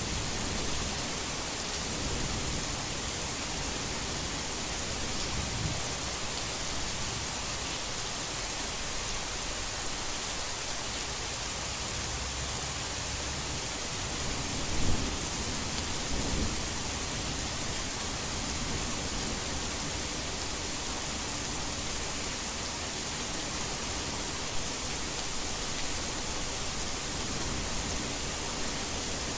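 Heavy rain falling steadily as a dense, even hiss, blended with added white noise, with one brief low thump about halfway through.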